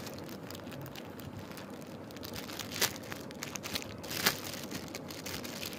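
Clear plastic toy packaging crinkling and crackling as it is handled and opened, with a few sharper clicks.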